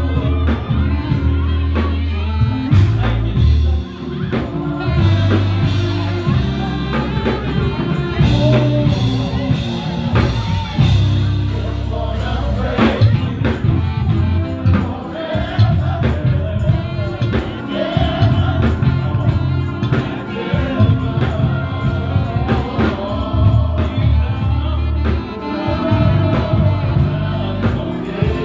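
Gospel music: several voices singing over a band, with a strong bass line that changes note every second or so and a steady percussion beat.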